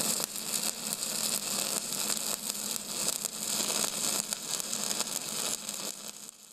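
A steady crackling hiss with a faint low hum underneath, fading out near the end.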